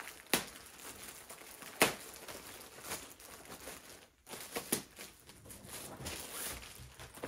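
Clear plastic packaging bag crinkling as it is handled and pulled open to take out a fabric sewing-machine cover. Two sharp crackles stand out in the first two seconds, and there are smaller ones later.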